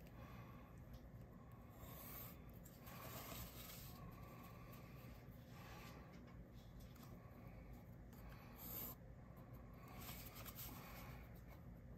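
Faint scratching of a graphite pencil drawn in several strokes across cereal-box cardboard along a plastic set square.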